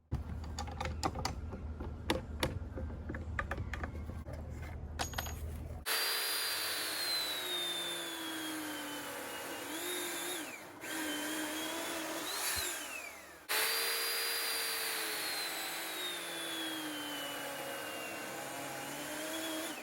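Electric chainsaw mounted as a chop saw, running and cutting through wood. Its motor whine sags slowly in pitch as the chain bites into the wood and rises again as it frees, stopping briefly twice before starting again. A low hum with scattered clicks comes before the saw starts, about six seconds in.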